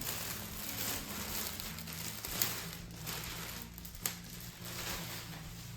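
Packaging crinkling and rustling as prize items are handled and taken out of their wrapping, with sharper crackles about two and a half and four seconds in.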